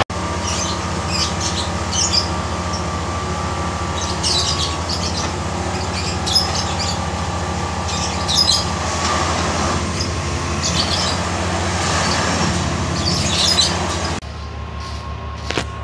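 Plasser & Theurer track tamping machine's engine running steadily, with short high chirps over it every second or two. The engine sound drops quieter about fourteen seconds in.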